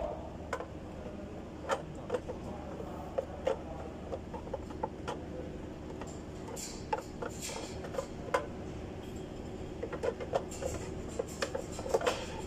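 Scattered light clicks, taps and rustling as a pleated panel air filter is handled and set into the plastic airbox of a 2016 Nissan X-Trail, over a steady low hum.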